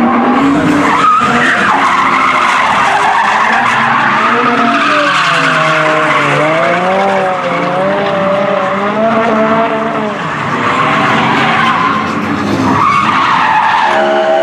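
Drift cars sliding sideways under power, tyres screeching, engines revving hard. The engine pitch swings up and down repeatedly as the throttle is worked through the slide.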